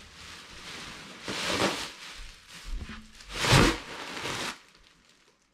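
Large black plastic bin bag rustling and crinkling as it is handled, with two louder swishes, the second the loudest; the sound cuts off suddenly near the end.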